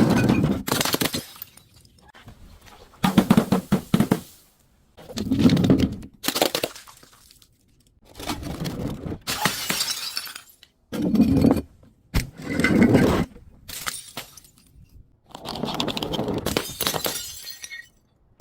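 Glass bottles breaking and crunching, one smash after another, about ten in all with short pauses between.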